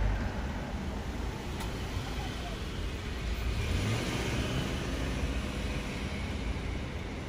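Street traffic: a steady rumble of engine and tyre noise, with a car passing about four seconds in.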